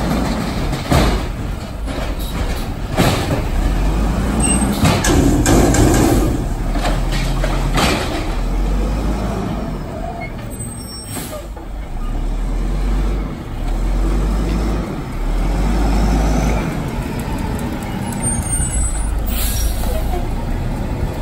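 Mack garbage truck's diesel engine running steadily, with several sharp air-brake hisses as the truck stops and moves along the curb.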